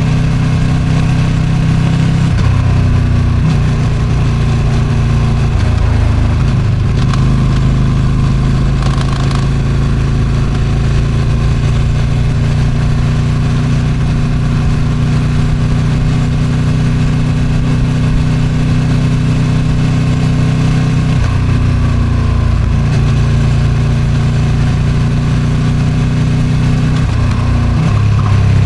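Ducati Streetfighter V2's 955 cc Superquadro V-twin with its stock exhaust, heard from the moving bike. It holds a steady cruise for most of the stretch, and the engine note changes pitch with throttle and gear changes a few times, near the start and again toward the end. Wind noise runs underneath.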